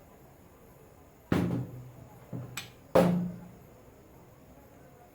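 Three heavy, drum-like thuds, each with a short low ring, and a light click between the second and the third.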